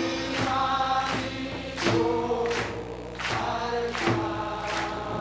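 Live song: a slow sung melody of long held notes over a percussion beat struck about every three quarters of a second.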